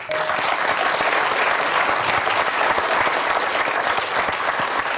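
Studio audience applauding, starting suddenly and going on steadily.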